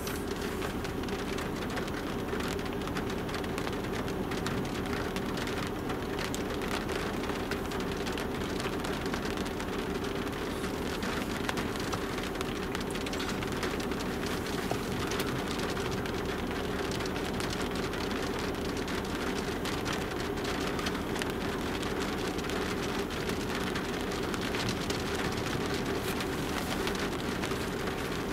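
Raindrops pattering on the windshield and body of a car, heard from inside with the windows closed: a steady patter of many small hits over a constant low hum.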